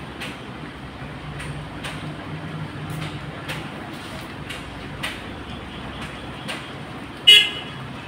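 Pen writing on paper in short strokes over a steady low hum; about seven seconds in, a short, loud, high-pitched toot.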